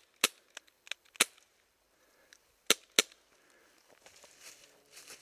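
Airsoft guns firing single shots: about half a dozen sharp cracks spread over the first three seconds, some close and loud, some fainter. Faint rustling follows near the end.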